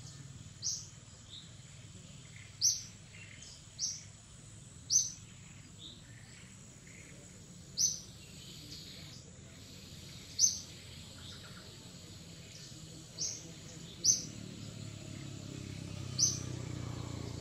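A bird repeatedly giving short, high chirps, about one every one to three seconds, with fainter chirps from other birds between them over a steady low background rumble.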